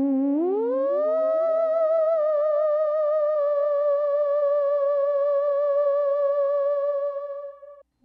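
Eerie theremin-style horror-movie music: one wavering tone that slides up a little over an octave in the first second or so, trailed by echoes of the slide, then holds with vibrato and fades out near the end.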